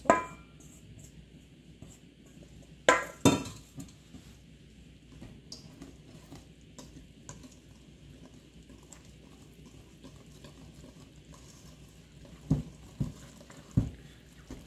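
Stainless steel mixing bowls clanking together as flour is tipped from one into the other, then a wire whisk stirring flour into thick batter in a steel bowl. There is a sharp clank at the start, two more about three seconds in, soft steady scraping and stirring, and three knocks of metal on metal near the end.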